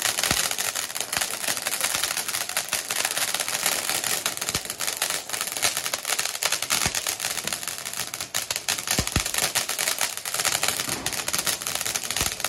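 A lit firecracker giving off a dense, steady crackle of rapid small pops over a hiss, with a handful of louder pops scattered through it.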